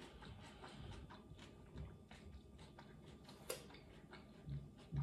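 Faint chewing of a mouthful of pickled ginger: many soft, quick mouth clicks, with one sharper click about three and a half seconds in.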